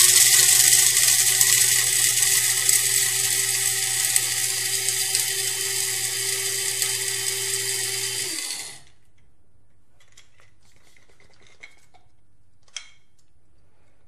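Krups F203 electric coffee grinder's 200-watt motor spinning its stainless steel blade through coffee beans: a loud, steady whirring buzz that grows gradually quieter as the beans are ground down, then stops about eight and a half seconds in when the button is released.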